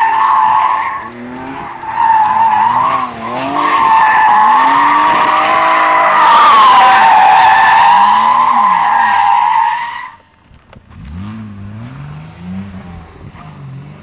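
Drift car's tyres screeching loudly in a long sideways slide, the pitch wavering as the car swings through the corner, with the engine revving up and down beneath. The screech stops abruptly about ten seconds in, leaving the engine revving more quietly as the car pulls away.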